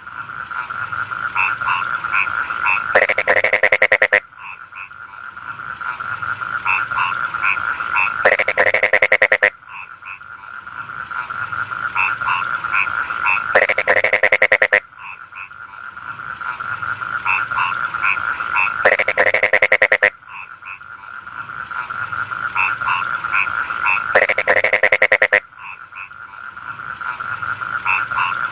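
Chorus of rice-field frogs croaking, with short trilled calls over a steady ringing tone. A loud burst of rapid croaking comes about every five seconds, the same pattern repeating each time.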